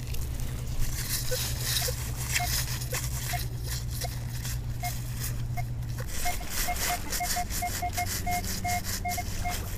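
Minelab Equinox 600 metal detector giving short target-tone beeps as the coil sweeps over metal, a few scattered at first, then a quicker irregular run of beeps from about halfway in. Faint clicks and scrapes run underneath.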